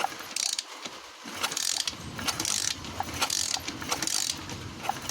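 125cc pit bike being kicked over repeatedly: the kick-starter ratchets and clicks in about eight short strokes, and the engine does not fire. This is a spark check after fitting a replacement ignition coil.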